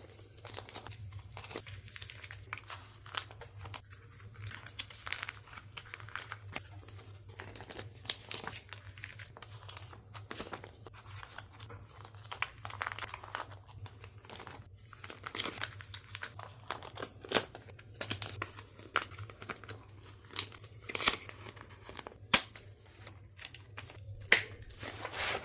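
Plastic binder sleeves crinkling and rustling as photo cards are slid into the pockets, with scattered light clicks and taps.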